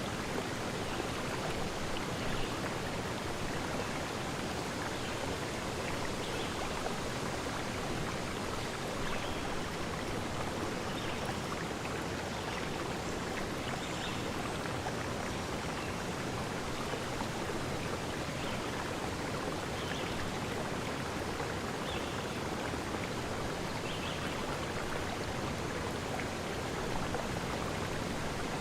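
A stream of running water, flowing steadily, with faint short splashes or drips every second or two.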